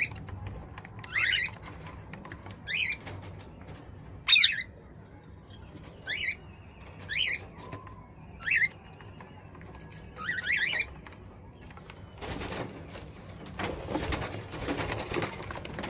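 Cockatiels calling: short, sharp chirps repeated about once a second, followed near the end by several seconds of rustling and wing flapping.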